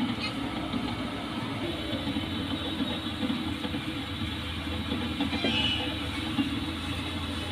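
Steady low mechanical rumble, with a low hum growing stronger near the end and a brief higher whine about five and a half seconds in.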